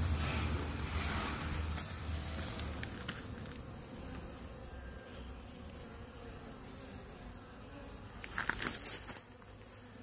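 Honeybee swarm buzzing steadily, with a brief knock about two seconds in and a louder burst of noise near the end.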